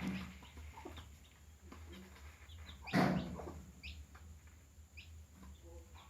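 Domestic hen clucking, with one loud call about three seconds in, and chicks giving short high peeps.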